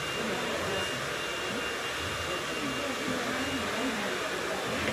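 Busy hair salon background: a steady rushing noise with indistinct voices of people talking, and a faint high steady whine.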